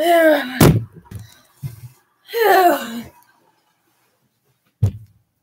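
A young woman's two wordless groans, each sliding down in pitch, as she sounds tired out. A sharp click follows the first groan, and a short thump comes near the end.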